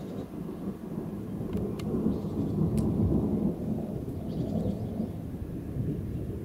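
Thunder from a supercell storm: a low rolling rumble that swells to its loudest two to three seconds in, then slowly eases off, with a few sharp ticks over it.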